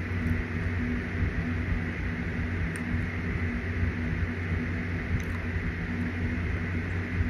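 Steady mechanical hum and whir of a running motor, like a fan or air conditioner, with a few faint clicks about three and five seconds in.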